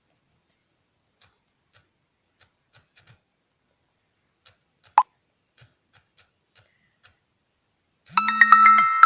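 Faint irregular taps on a smartphone, with one sharp click about five seconds in, then near the end a loud electronic chime of several steady tones from the phone.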